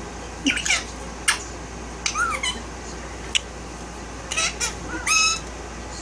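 Indian ringneck parakeet giving a string of short, high-pitched chirps and squawks, about five calls with a few sharp clicks between them.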